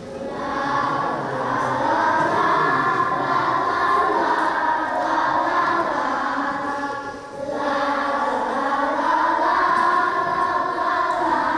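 Young children's choir singing a song together, with a short break between phrases about seven seconds in.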